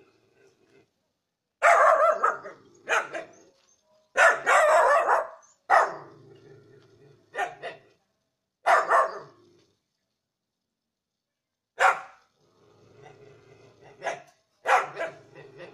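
Dogs barking: about a dozen barks in short runs, with gaps of up to three seconds between them.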